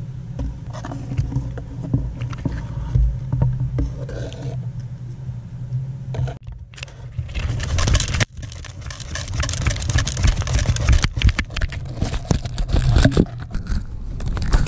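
Dry grass nesting material rustling and scraping as an Atlantic puffin moves about inside its nest box, in scratchy spells from about halfway through, over a steady low rumble.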